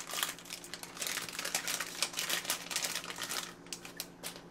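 Foil-lined HeroClix booster pack crinkling and crackling as it is torn open by hand and its contents pulled out. The crinkling dies down about three and a half seconds in.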